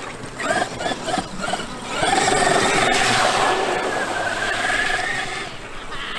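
Traxxas X-Maxx RC monster truck's brushless electric motor whining: a few short throttle blips, then a longer steady run at one pitch.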